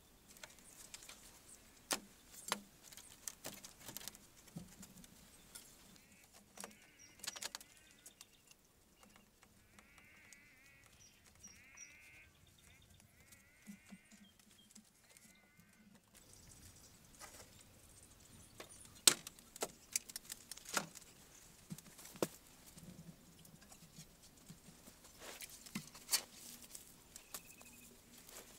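Scattered light knocks, taps and rustles of hand work with bamboo and soil. A run of faint, high, wavering animal calls comes in the middle stretch.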